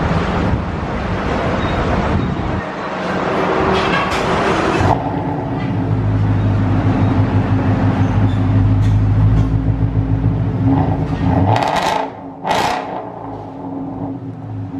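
Ford Mustang GT's 5.0 L V8 running through a freshly fitted X-pipe exhaust with the resonators removed. It is loud and rough for the first few seconds, then settles into a steady, deep idle rumble. There is a short sharp noise near the end.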